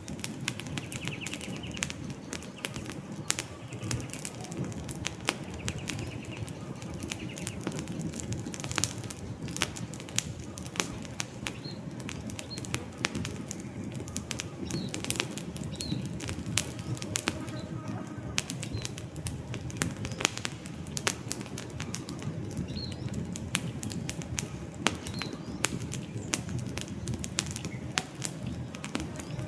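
Campfire burning, with a steady low rumble and dense, irregular crackles and pops from the wood. A few faint, short bird chirps are heard now and then.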